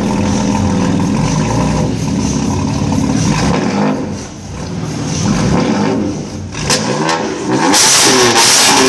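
BMW M4 safety car's twin-turbo straight-six, through its M Performance exhaust, idling steadily and then revved repeatedly, the pitch rising and falling with each blip. It is louder and harsher in the last second.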